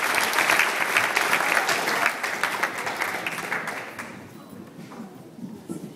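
Audience applauding, the clapping fading away about four seconds in and leaving faint scattered voices.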